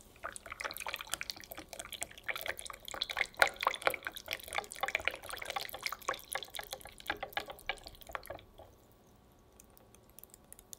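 Silicone-coated whisk beating thin chocolate crepe batter in a glass bowl: rapid wet sloshing and clicking of liquid. It stops about eight and a half seconds in.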